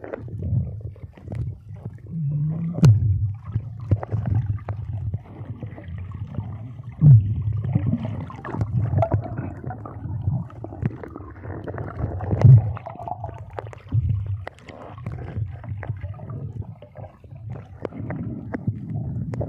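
Underwater sound picked up by a submerged camera: a low, uneven rumble and gurgling of moving water and air bubbles, with scattered knocks.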